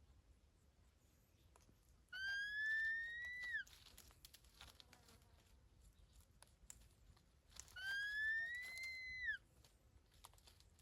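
A bird gives two long whistled calls about five seconds apart. Each lasts about a second and a half, rising slowly in pitch and then dropping sharply at the end.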